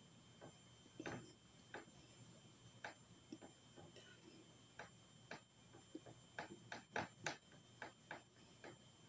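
Faint, irregular soft clicks and brushing sounds of a makeup brush blending powder on the face, busiest about two-thirds of the way through.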